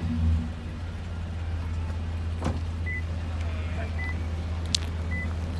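Toyota Vellfire 30-series engine idling through an aftermarket Noblesse mid-pipe and rear-piece muffler exhaust, the revs dropping back to a steady low idle in the first half second. A few short high beeps and a sharp click sound over it.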